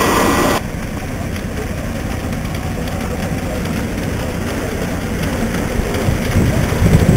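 Loud steam hiss from a live-steam model locomotive on a 5-inch gauge track, cutting off suddenly about half a second in. A low steady rumble follows, with faint ticking, and grows louder shortly before the end.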